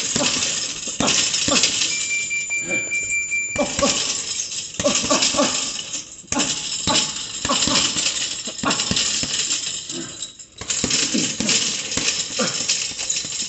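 Boxing gloves striking a leather double-end bag in fast, irregular flurries of punches, the bag smacking back and forth on its cords. There are short breaks about six seconds in and again near the end.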